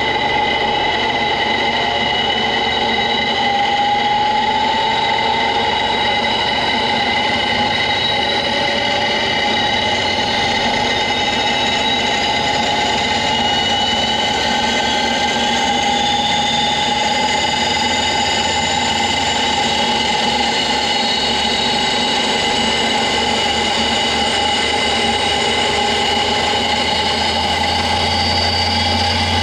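High-speed gear test rig running a greased 3D-printed PC+ straight spur gear, a steady loud mechanical whine made of several tones, the higher ones slowly rising in pitch as it spins faster.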